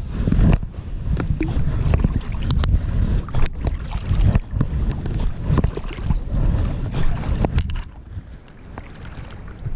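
Wind buffeting the microphone in an uneven low rumble, with scattered clicks and knocks; it eases off near the end.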